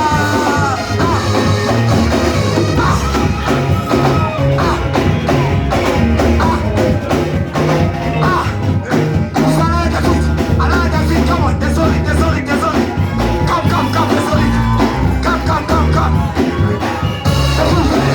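Loud live worship music from a band, with a steady bass line, a regular drum beat and singing voices.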